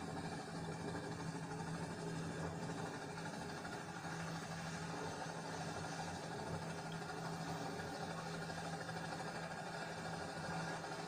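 Light turbine helicopter's engine and rotor running steadily as it lifts off the ground into a low hover, a constant low hum. It is played back through a television's speaker.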